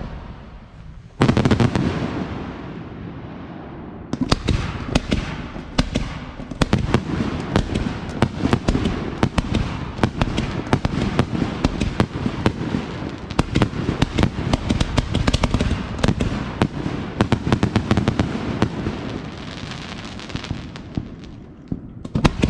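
Aerial fireworks display at close range: a heavy boom about a second in, then from about four seconds a continuous barrage of booms and dense crackling that eases off near the end.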